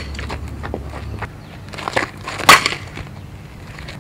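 A fastpitch softball bat striking a pitched ball once on a power slap swing, a sharp crack about two and a half seconds in, with a few lighter scuffs of the hitter's steps on the infield dirt just before it.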